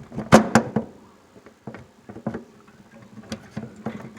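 Plastic-and-metal clicks and rattles of a wire's spade connector being worked off a furnace control board and the wires being handled: a quick cluster of sharp clicks about half a second in, then single clicks now and then, over a low steady hum.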